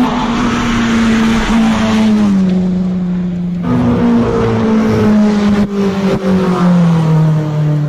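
Rally car engine run hard at high revs as the car passes on a stage. The engine note steps down about two seconds in and falls slowly near the end.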